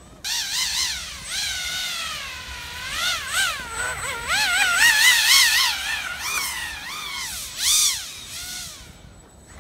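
Pro Boat Aerotrooper RC hovercraft's brushless electric motor and fan whining loud. The pitch swoops up and down quickly as the throttle is worked. It starts suddenly, is loudest about halfway through and dies away near the end.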